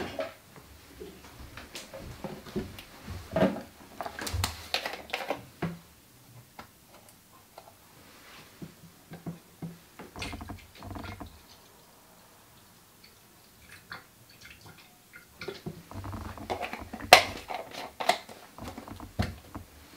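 Scattered clicks and knocks of plastic chemical bottles, a cap and a plastic measuring jug being handled on a countertop while photographic fixer is measured out, with quiet gaps between; the loudest is a sharp click about 17 seconds in.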